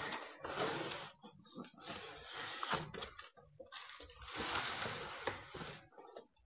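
Cardboard rubbing and scraping as a boxed cookware set is slid and lifted out of a cardboard shipping carton, in several long scraping bursts, the longest near the end.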